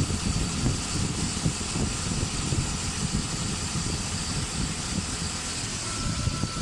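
Automatic wood-turning lathe running between cuts: the motor and spinning chuck give a steady low rumble, with no cutting whine. A steady high tone comes in near the end.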